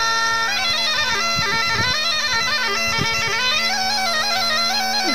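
Folk music on a bagpipe: a melody stepping up and down over one steady, unbroken drone.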